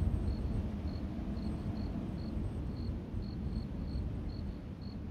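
Crickets chirping: short, high chirps at one pitch, two or three a second and unevenly spaced, over a low steady rumble.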